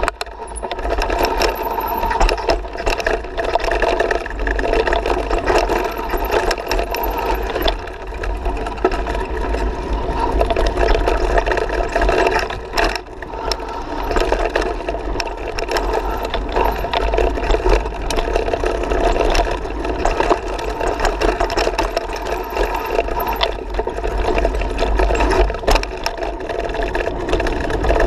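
Mountain bike ridden fast down a dirt trail, heard from a camera on the rider: continuous wind rumble on the microphone, tyre noise on the dirt, and constant rattling clicks from the bike and camera mount over the bumps.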